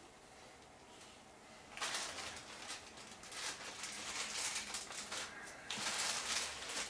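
Plastic bag crinkling and rustling as it is handled, starting about two seconds in and getting louder near the end.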